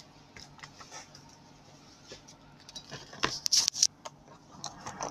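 Scattered light clicks and taps of small hard objects being handled, with a quick cluster of sharper clicks and scrapes about three seconds in.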